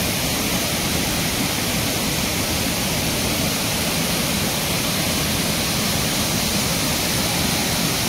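Waterfall heard up close: a steady, unbroken rush of falling water.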